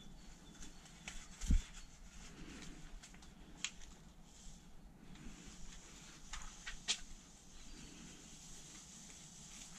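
Gloved hands pressing and patting soil into a plastic seed-cell tray: soft rustling with scattered light clicks, and a dull thump about a second and a half in.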